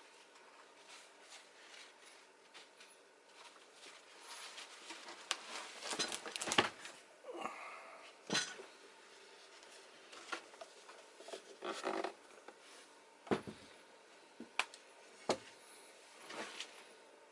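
Handling noise from cleaning printer parts: tissue paper rubbing and wiping, with scattered sharp knocks and clicks as parts are moved and set down.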